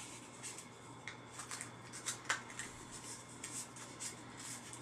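A sheet of thin paper rustling as hands roll it into a cone, in short scratchy strokes, with one sharper click a little past halfway.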